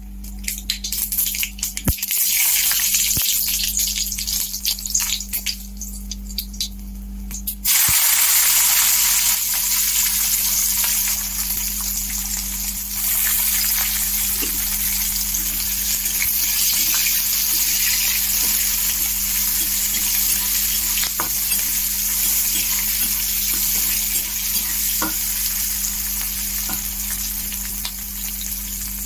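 Hot oil crackling and spitting in a kadai. About eight seconds in, green capsicum pieces go into the oil and it breaks into a loud, steady frying sizzle.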